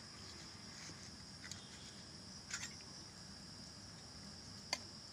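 Faint room tone with a steady high-pitched hum, broken by a few soft clicks and scrapes of a metal spoon against a ceramic plate as jam is scooped up.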